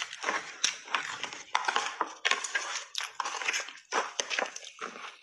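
Ice chunks coated in milk powder being bitten and chewed close to the microphone: a dense, irregular run of loud cracks and crunches.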